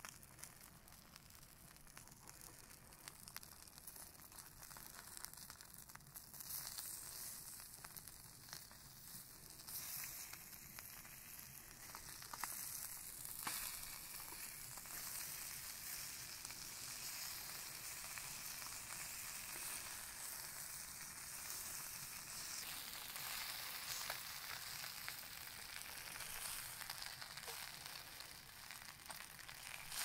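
Fish fillets frying in a pan on a portable gas camping stove: a steady sizzle that grows louder about six seconds in. A few clicks of the spatula and tongs against the pan come as the fillets are turned.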